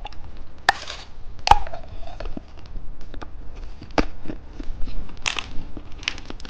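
Plastic candy packaging being handled: irregular crinkling and rustling with scattered sharp clicks and taps, a few louder crackles.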